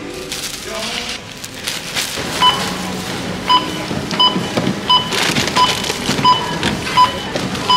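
Checkout barcode scanner beeping as a cashier scans groceries: about eight short beeps, one every two-thirds of a second or so, beginning about two and a half seconds in.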